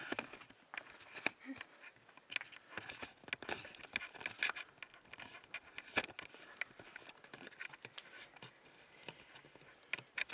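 Footsteps on rock and grit: an irregular series of short scuffs and clicks.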